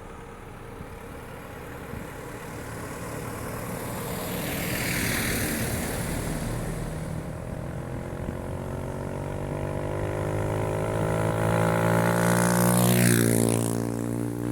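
Highway traffic: a vehicle goes by about 5 s in, then an engine hum grows steadily louder and slightly higher in pitch, with a vehicle passing close and quickly about 13 s in.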